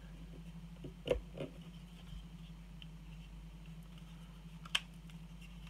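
Plastic Raspberry Pi case being pressed and snapped together by hand: a few short plastic clicks, one about a second in and a sharp one near the end, over a low steady hum.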